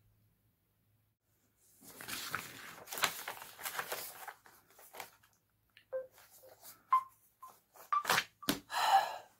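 Rustling of clothing and chair as a person sits down, followed by scattered clicks and knocks with a few short tones. The loudest clatter comes near the end.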